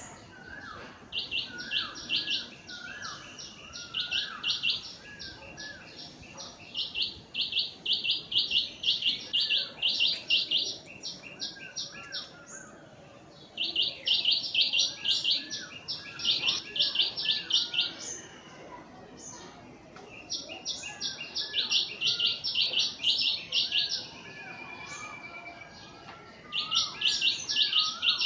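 Birds chirping: bouts of rapid high chirps, about five a second, each bout lasting a few seconds, with softer, lower calls in between.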